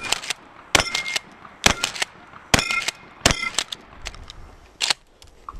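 Shotgun firing about six shots, roughly one a second with a longer gap before the last. Each shot is followed by a short clatter and a brief metallic ring.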